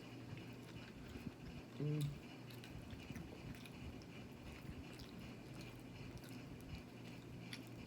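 Soft mouth sounds of people eating a seafood boil: quiet chewing with small scattered clicks, and a short hummed "mm" about two seconds in.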